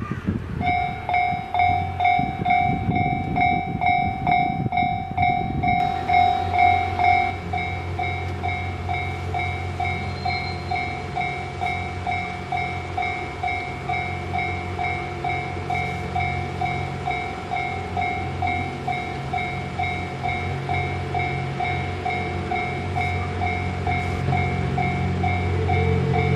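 Railway level-crossing warning bell ringing, a repeating electronic ding about twice a second that starts just after the opening. Under it a passing train gives a low rumble, rougher for the first few seconds and then a steadier drone.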